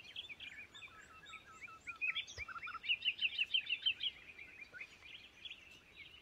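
Songbirds chirping: quick runs of short, high chirping notes, busiest around the middle.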